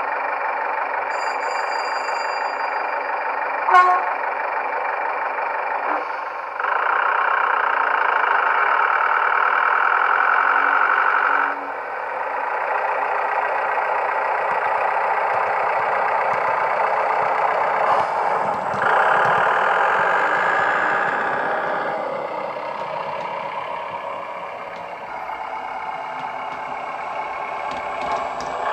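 DCC sound decoder playing the diesel engine of a GWR AEC railcar through the small speaker of a Heljan OO gauge model. The engine note rises and drops back in steps several times. A short loud tone comes about four seconds in.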